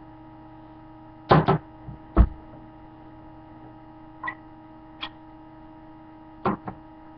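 Steady electrical hum with a handful of short knocks and clicks over it: a pair about a second in, a low thump just after two seconds, two faint ticks, and another pair near the end.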